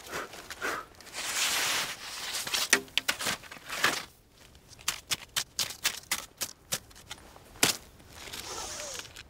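Ski poles and skis on crusty snow: a swishing scrape about a second in, then a run of sharp clicks and taps from pole plants and ski contact, and another swish near the end.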